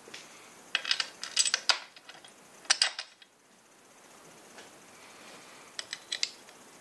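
Small steel bolts and an Allen wrench clinking together as they are picked up and handled, in several short clusters of light metallic clicks.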